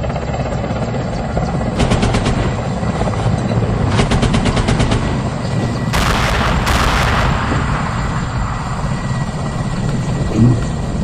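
Military helicopter flying low, its rotor and engines a steady rumble. About two and four seconds in come short bursts of rapid shots, and about six seconds in a loud rushing blast lasting about a second as the helicopter fires its weapons.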